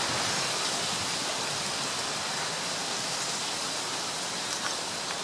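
Steady, even hiss of outdoor background noise, with a couple of faint taps near the end.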